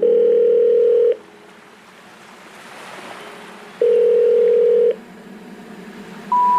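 Two steady electronic tones, each about a second long and nearly three seconds apart, with a faint hiss between them.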